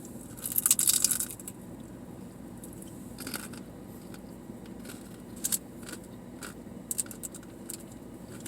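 A crunchy bite into a taco about half a second in, then chewing with a few small clicks and smacks, over the steady low hum of a car idling with the air conditioner on.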